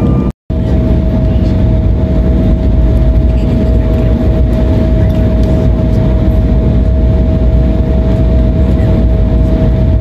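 Cabin noise of an Embraer E175 jet taxiing: the steady rumble of its GE CF34 turbofans with a steady whine over it. The sound breaks off for a moment just after the start.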